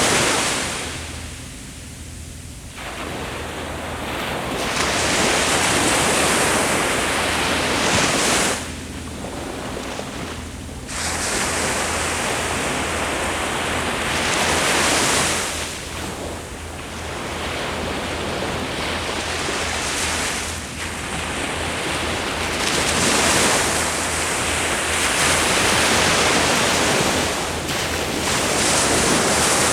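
Ocean waves breaking and washing up the shore in repeated surges, each swelling and easing, with short lulls between them.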